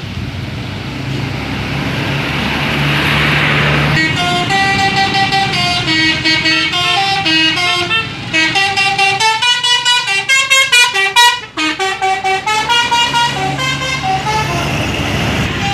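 A bus's telolet horn, a set of multi-tone musical air horns, plays a quick stepping tune from about four seconds in, with a run of fast short toots in the middle, and fades near the end. Before it starts, the bus's engine and road noise are heard.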